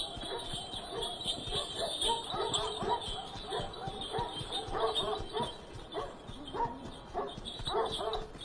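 Dogs barking and yelping, a string of short barks coming irregularly.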